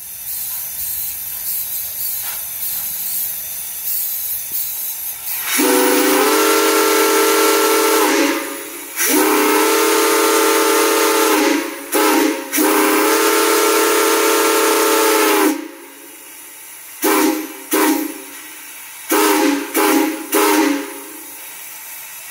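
Steam hissing steadily, then a steam whistle sounding a chord of several notes. It gives three long blasts, with two short toots before the third, and then a string of about five short toots over the quieter hiss.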